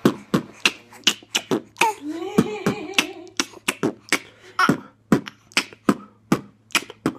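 A man beatboxing a steady beat of mouth percussion sounds, about three a second, with a short wavering hummed note about two seconds in.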